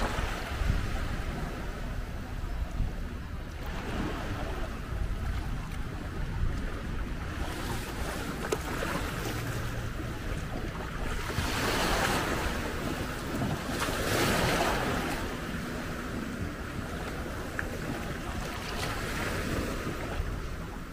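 Sea water washing and splashing against a moving long-tail boat, with wind buffeting the microphone over a steady low rumble. The rush of water swells twice in the second half.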